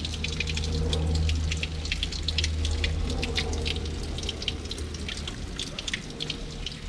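Thin stream of spring water running from a fountain's wall spout and splashing into a drain grate below, with quick, irregular drips and splashes.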